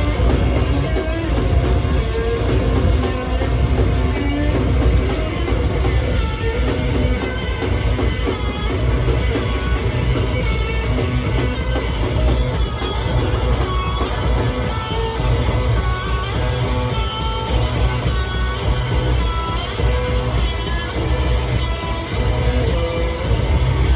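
Live noise rock from a bass-and-drums duo: heavily distorted, effects-laden bass guitar plays fast, riffing note runs over dense, rapid drumming.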